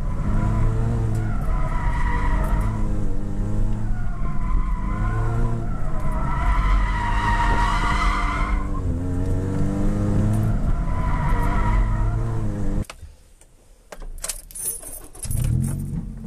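Toyota Yaris B-Spec's four-cylinder engine revving up and down, heard from inside the cabin, with the tires squealing in repeated swells as the car slides in oversteer on a skid pad. About 13 seconds in the sound drops away sharply to a few clicks and a short hiss, and the engine picks up again near the end.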